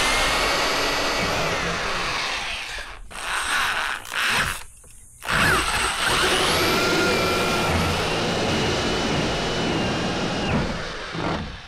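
Handheld electric drill boring into a plastic headlight cover: a first run of about three seconds, a couple of short bursts, then a longer run of about six seconds, the motor whine rising as it spins up each time and winding down near the end.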